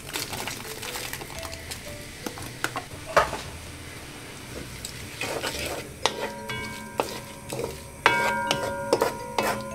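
Chopped onions sizzling in melted butter and olive oil in a large aluminium pot, with a wooden spoon scraping and knocking against the pot as they are stirred. Background music with held notes comes in about six seconds in.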